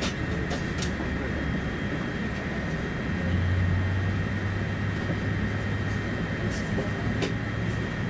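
Airbus A350-900 cabin on the ground during pushback: a steady hum and air hiss from the aircraft's systems, with a low drone that steps up and grows louder about three seconds in, and a few faint clicks.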